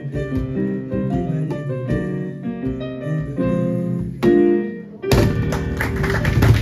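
Live ending of a song on a Kawai digital keyboard with cajón hits, closing on a held final chord about four seconds in. About a second later applause breaks out.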